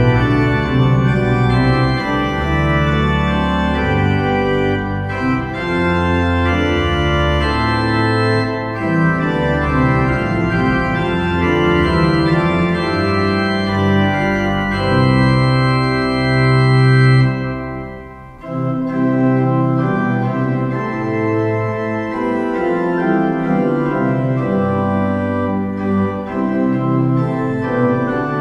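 Organ playing the postlude in full sustained chords over a low bass line. There is a short break about two-thirds of the way through.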